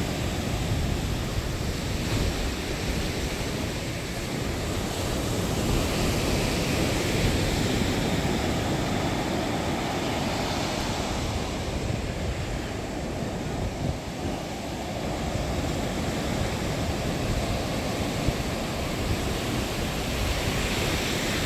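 Ocean surf breaking and washing up a sandy beach, swelling and easing every few seconds, with wind rumbling on the microphone.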